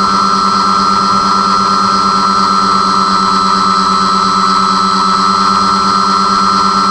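Twin motors and propellers of an RC airplane in flight, picked up by the onboard camera: a steady high whine over a pulsing hum, held at constant throttle.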